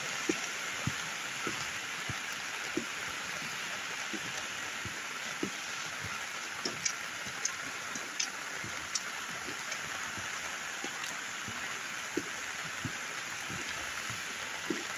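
Steady rain falling, with scattered drops tapping close by at irregular intervals, over the rush of floodwater running through an arroyo.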